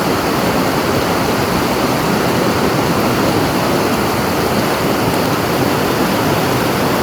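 Steady, loud rush of water, even and unbroken.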